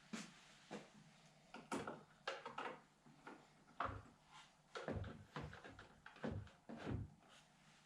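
Faint, irregular knocks and clicks, roughly two a second, of small parts and tools being handled on the vehicle.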